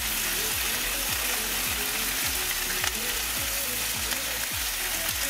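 Skewered marinated chicken wings and green peppers sizzling on a hot grill, a steady hiss of frying. Faint background music with a steady beat runs underneath.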